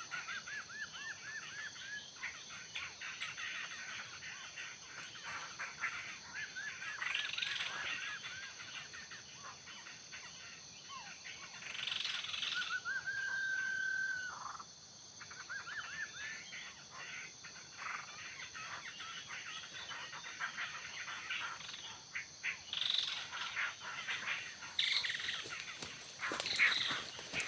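Laughingthrushes calling in runs of quick, repeated, arching notes, with one long steady whistle midway and sharper calls near the end, over a steady high drone of insects.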